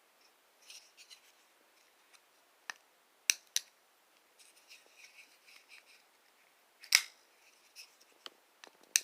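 Spyderco Para 3 folding knife being handled: a handful of sharp metallic clicks as the blade is worked open and shut against its compression lock, with soft rubbing and rustling of the knife in hand between them.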